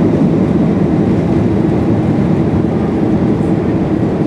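Boeing 737-800's CFM56-7B jet engines and the airflow over the fuselage, heard inside the cabin during takeoff as a loud, steady, low rumble.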